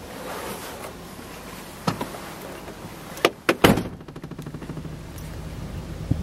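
Pickup truck door shut from inside the cab: a couple of sharp clunks about three and a half seconds in, after which the outside noise drops away. A steady low hum carries on underneath.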